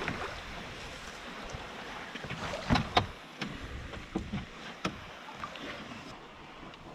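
Canoe being paddled: paddle strokes dipping and splashing in the water, with drips, at a slow uneven pace. The sharpest splashes come a little before halfway.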